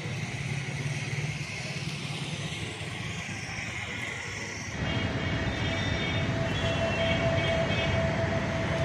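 Steady engine rumble of heavy vehicles or machinery. About five seconds in it gets louder and a steady whine joins it.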